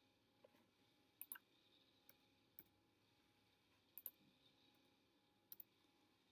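Faint keystrokes on a computer keyboard, heard as a handful of separate sharp clicks, several in quick pairs, with near silence between them.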